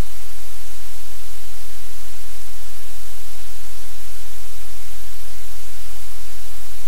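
Loud, steady low electrical hum under an even layer of static hiss, with nothing else standing out.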